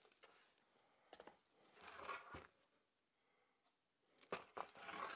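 Near silence, with two brief faint bouts of rustling and scraping, about two seconds in and near the end.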